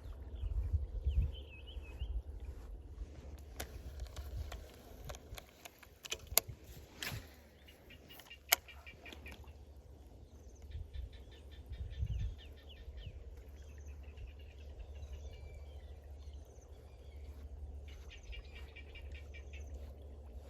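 Birds chirping in repeated bursts over a steady low rumble, with a few sharp clicks in the middle.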